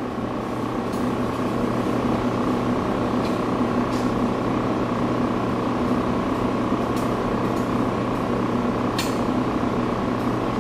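Steady hum of household background noise with a thin high whine, and a few faint light ticks here and there.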